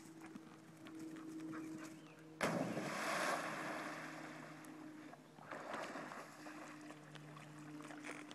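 A dog leaps into a pond with a sudden loud splash about two and a half seconds in, followed by water churning and splashing as it swims, with another swell of splashing around halfway through.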